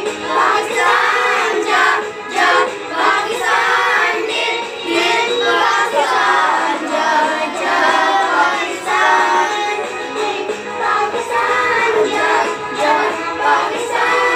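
A group of children singing a Pakistani national song together in chorus.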